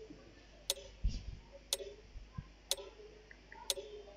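Clock ticking steadily, one short tick each second, counting off the seconds of a timed answer period. A soft low thump about a second in.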